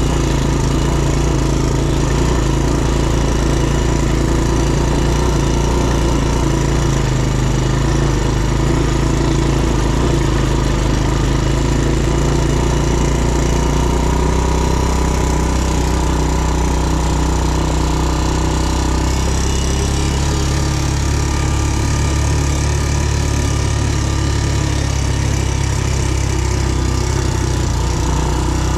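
ATV engine running steadily at a constant speed, its note shifting a little about two-thirds of the way through.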